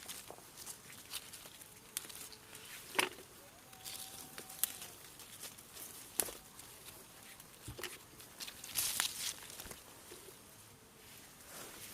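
Chili plants being handled during picking: irregular sharp snaps of stems and rustling leaves, a second or so apart, with a longer rustle near the end.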